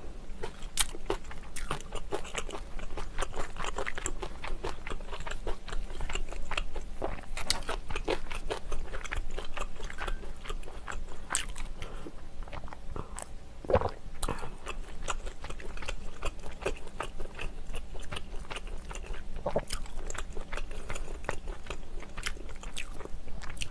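A person chewing and eating close to the microphone, a mouthful of tuna kimchi stew giving many small mouth clicks, with a pause about halfway through to drink from a mug.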